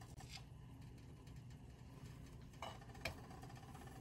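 A tortilla is laid onto a dry cast-iron skillet, giving two light taps about two and a half and three seconds in over a faint steady low hum.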